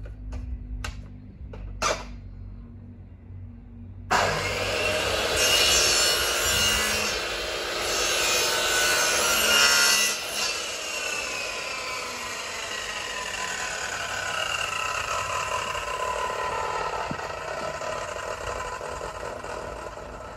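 A few light clicks, then an electric drop saw (mitre saw) starts about four seconds in and cuts a mitred frame piece. After about ten seconds its motor winds down slowly, its whine falling in pitch.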